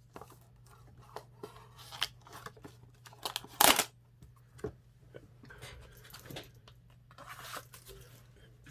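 Box-opening knife cutting open a sealed trading-card box: scattered light scrapes and clicks of the blade and packaging, with one louder tearing rip about three and a half seconds in.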